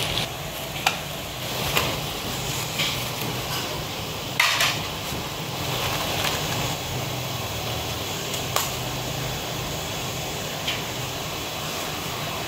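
Food stall ambience: a steady low hum with occasional sharp clinks of serving spoons and tongs against steel food trays. The longest clatter comes about four and a half seconds in.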